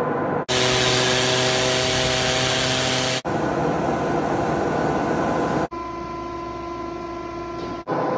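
Steady workshop machine noise in short pieces cut together: each a steady hum with a few held tones, switching abruptly about every two to three seconds.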